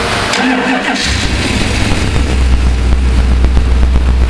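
A 408 cubic-inch Chrysler stroker V8, built from a 360 block and running stock exhaust manifolds, fires up about a second in and settles into a steady, loud low idle.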